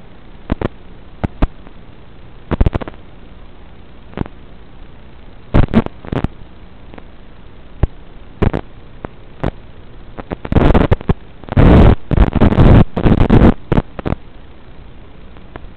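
Steady hiss on the audio of a raw analog FPV drone DVR recording, broken by irregular crackling bursts of noise, the loudest and densest of them about ten to fourteen seconds in.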